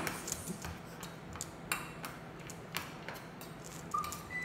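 A spoon clinking and scraping in a small stainless-steel dog bowl as dog food is stirred, in irregular sharp ticks.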